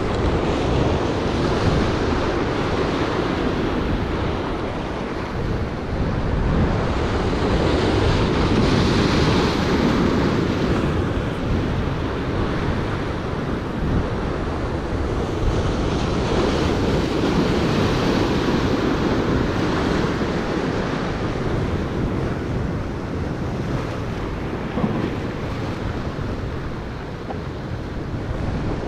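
Ocean surf breaking and washing over the rocks of a jetty, rising and falling as the waves come in, with wind buffeting the microphone.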